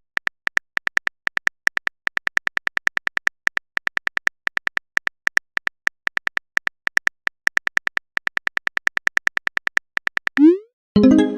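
Simulated phone-keyboard typing clicks from a texting-story app: a fast, uneven run of short, identical high ticks as a message is typed out. Near the end, a short rising bloop marks a message being sent.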